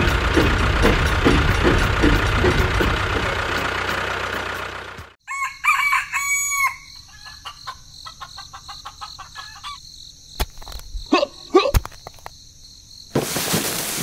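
A loud, dense rumble for about the first five seconds that cuts off abruptly. It is followed by farmyard sound: a rooster crowing, hens clucking and a steady high-pitched hum.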